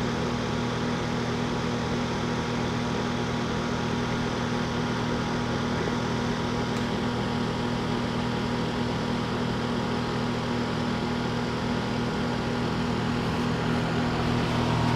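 Carrier Performance Series heat pump outdoor unit running: a steady hum from its scroll compressor and condenser fan, getting a little louder near the end.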